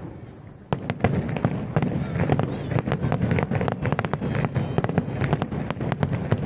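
Aerial fireworks bursting in a rapid barrage: after a short lull, dense sharp bangs and crackles start about a second in and keep coming thick and irregular over a low rumble.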